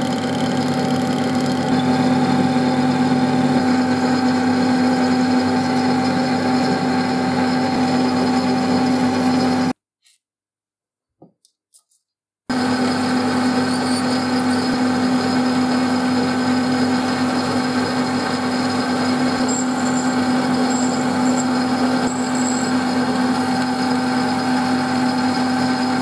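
Metal lathe running at a steady speed, a constant hum with a higher whine over it, while a small metal pin is turned and finished in its chuck. The sound cuts off suddenly about ten seconds in and resumes about two and a half seconds later.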